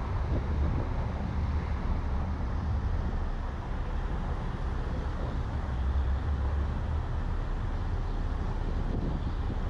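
Steady low rumble of a car on the move: road and tyre noise with wind buffeting the car-mounted camera's microphone.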